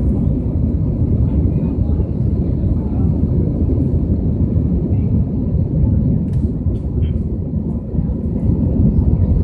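Airbus A321 jet engines at takeoff power, heard from inside the cabin: a loud, steady low rumble.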